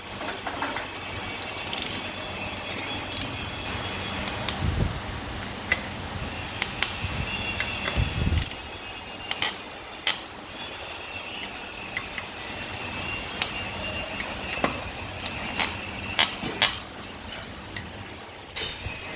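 Hand tools clinking on metal while the bolts of a Mercedes gearbox high-low housing are tightened: scattered sharp metallic clicks, with a couple of dull knocks about five and eight seconds in.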